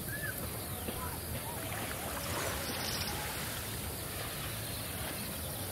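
Steady outdoor background noise, an even hiss with a few faint short chirps.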